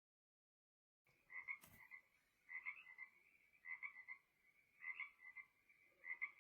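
Faint nature-sound track from the Momcozy sunrise alarm clock's sound machine: it starts about a second in, then a call repeats about every 1.2 s over a thin steady high tone.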